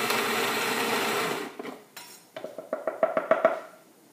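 Zojirushi electric water boiler's pump running steadily as it dispenses hot water into a small steel pitcher, stopping about a second and a half in. A quick run of light metallic clicks and clinks follows.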